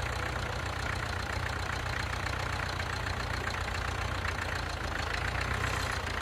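An engine idling steadily with a low, even throb.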